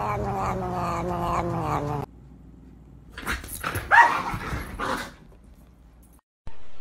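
A cat gives a long, low, drawn-out growl while biting a finger, slowly falling in pitch and cutting off abruptly about two seconds in. Then comes a scuffle between a small dog and a cat, with a short, sharp cry about four seconds in.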